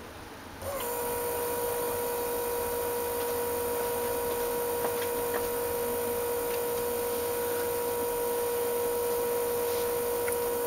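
BMW E36 in-tank electric fuel pump switching on about a second in and running with a steady whine, powered through the bridged fuel pump relay with the engine off and building fuel pressure to about 55 psi.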